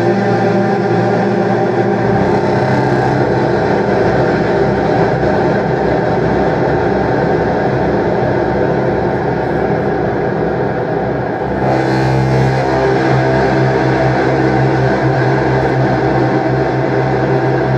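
Contrabass clarinet run through effects pedals into a Walrus R1 stereo reverb on its huge BFR algorithm, tuned to sound oceanic, heard through studio speakers: a dense, sustained low drone of held notes washed in reverb. The held pitches shift about 2 seconds in and again about 12 seconds in.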